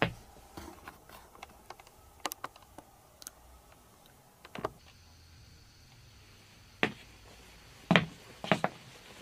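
Irregular light clicks and knocks of someone handling the camera and moving about in a small quiet room, with a faint steady high whine coming in about halfway through.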